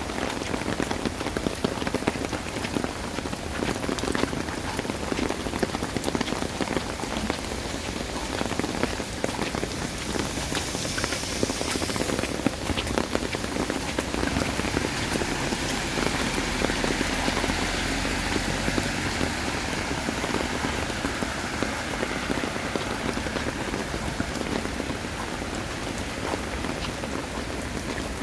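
Heavy rain falling steadily, a dense patter of drops on the surfaces around.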